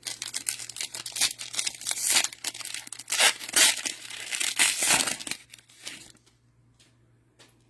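Plastic wrapper of an NFL Mosaic cello pack of trading cards being torn open and crinkled. The dense crackling stops about six seconds in.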